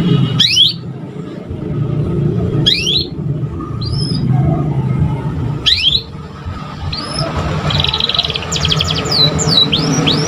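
A young canary learning to sing: single quick rising whistles every couple of seconds, then near the end a fast trill and a run of quick falling notes. A loud low rumble runs underneath.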